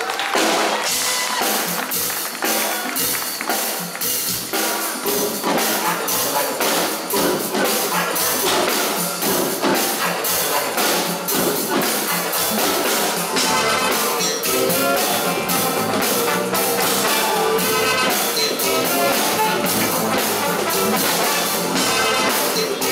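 Upbeat band music with a drum kit keeping a steady beat under wind instruments.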